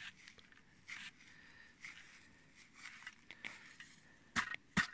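Hand ice auger worked in snow and ice: faint scraping and crunching rasps about once a second, then two sharp knocks near the end.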